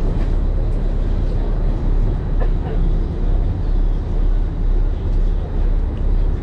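A fishing boat's engine running, a steady low rumble that swells and eases gently about twice a second.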